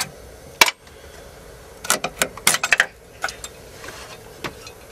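Sharp metallic clicks and clinks of a wrench working on bolts at a car gearbox's front mount. There is one click about half a second in, a quick irregular flurry of them around two to three seconds in, and a few more near the end.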